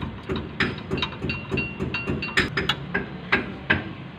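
Hand tools clicking and knocking on a wheel hub during wheel-bearing reassembly, an irregular series of sharp metallic taps about two to three a second.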